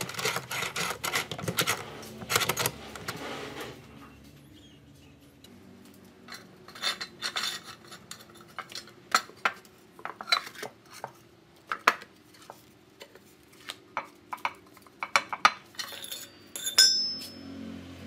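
Metal rattling and clinking. For the first four seconds a homemade steel door latch rattles as a gloved hand works its twisted-rod bolt and wire drop handle. After that come scattered sharp clinks of steel rod and rebar knocking on a steel channel, with one ringing ping near the end.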